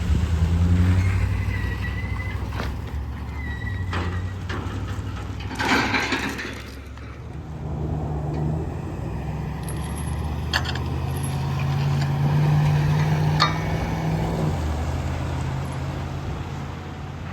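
Truck engine running steadily, with a short hiss of air about six seconds in; the engine note rises and grows louder from about eight seconds, then eases back near the end.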